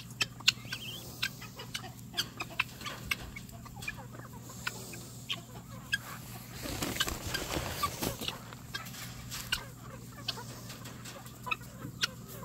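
A flock of chickens clucking softly while they forage, with many short, sharp clicks scattered through it.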